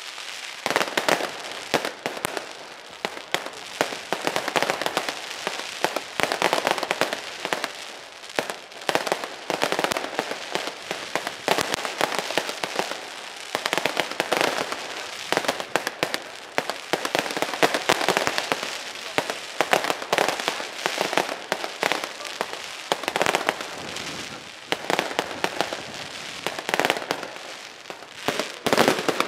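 Professional fireworks display: a dense, continuous string of rapid pops, bangs and crackling from aerial shells and ground-level crackle effects, swelling and easing in waves.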